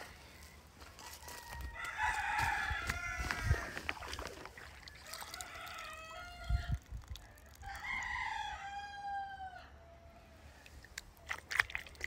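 Rooster crowing: one long crow about two seconds in and another about eight seconds in, with a shorter call between them. A few sharp clicks come near the end.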